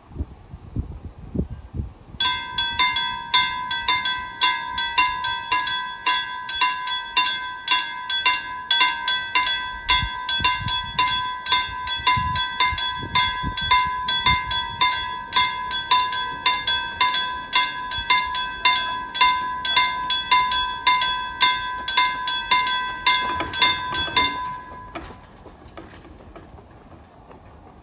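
Swedish level-crossing warning bell ringing in rapid, even strikes, starting about two seconds in and cutting off suddenly a few seconds before the end, once the barriers are down: the warning for an approaching train. Wind on the microphone before the bell starts.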